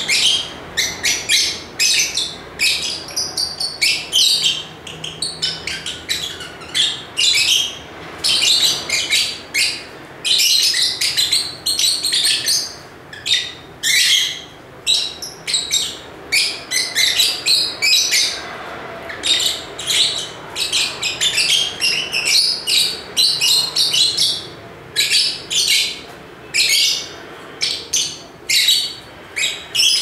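A pair of caged lovebirds chirping: a steady stream of rapid, high-pitched chirps in short clusters with only brief pauses between them.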